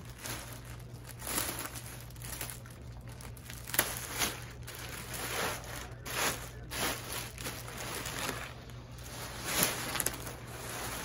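Thin plastic mattress wrapping crinkling and rustling in irregular bursts as the outer plastic band is peeled away and the rolled mattress is turned back and forth, over a faint steady low hum.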